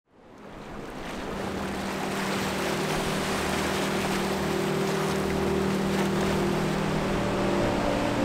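Sea waves washing over a rocky shore, fading in over the first second or so, with a steady low drone of held tones underneath that shifts in pitch near the end.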